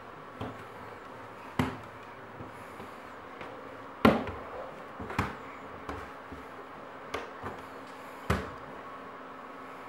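A toddler's hands and knees knocking on wooden stair treads as he climbs: about eight irregular thumps, the loudest about four seconds in.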